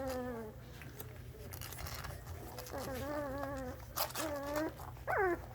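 English Mastiff puppies whining: a run of drawn-out, wavering whines, the last one short and dropping sharply in pitch like a yelp, with a few sharp clicks between them.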